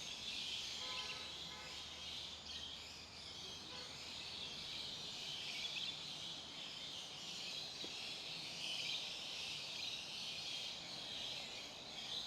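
Faint outdoor nature ambience: a steady, dense, high-pitched chirping chorus, with a short pitched call about a second in.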